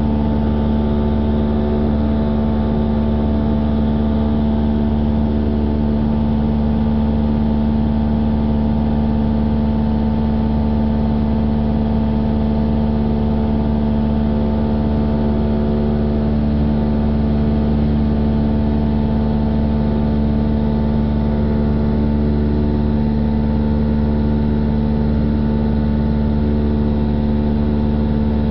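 Single-engine light airplane's piston engine and propeller running steadily at climb power, heard from inside the cabin as an unbroken hum of several steady tones.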